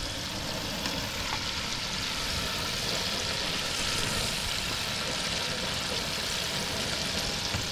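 Hot oil bubbling and sizzling as battered fish pieces deep-fry in a pot over a propane burner, under a steady low rumble of burner and wind on the microphone.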